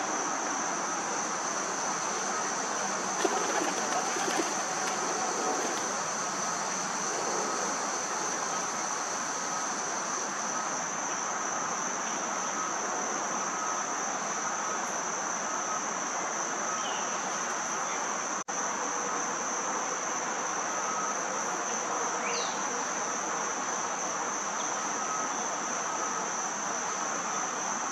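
Insects trilling steadily in one unbroken high-pitched tone over a constant background hiss, with a short cluster of louder clicks and crackles about three to five seconds in.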